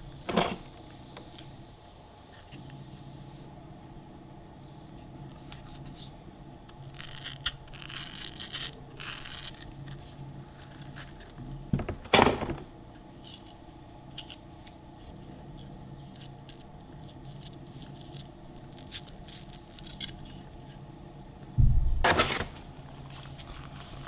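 Hard plastic tool attachments and a plastic carry case being handled and set down on a wooden table. Sharp knocks come about half a second in, around twelve seconds in and again near the end, with scraping and rattling between them.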